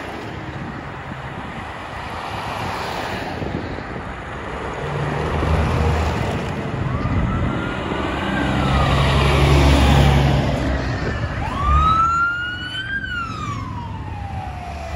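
Heavy diesel tow trucks rolling past in a slow procession, their engines swelling to a deep rumble as they go by. A siren wails up and down faintly midway, then winds up sharply near the end and slowly winds down.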